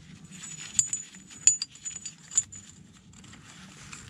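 Heavy steel tire chain on a compact tractor tyre clinking and rattling as it is tugged to take up slack, with a few sharp clanks of link on link in the first two and a half seconds.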